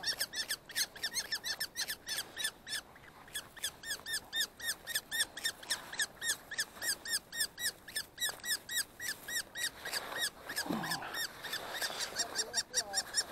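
Common kestrel calling in a rapid, even series of shrill kee-kee notes, about four to five a second, with a brief pause about three seconds in.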